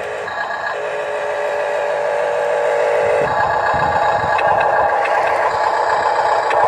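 Huina 1569 radio-controlled dump truck driving slowly over dirt, its motor and gearbox whining steadily and growing a little louder as it approaches, with light clicks and clatter.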